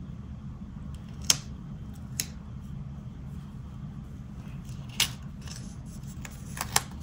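Paper stickers and a planner page being handled: five sharp ticks and light paper rustles at scattered moments, two of them close together near the end, over a steady low hum.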